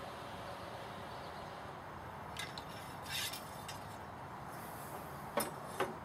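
A few light metallic clicks and clinks from muzzleloader loading gear being handled at the bench, with a brief rustle a little past halfway and two sharp clicks about half a second apart near the end.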